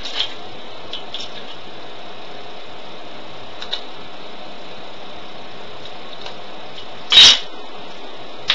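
Steady background hiss with a few faint clicks from hands handling a steel ruler and thin abalone shell veneer being trimmed against it, and one louder sharp crack about seven seconds in.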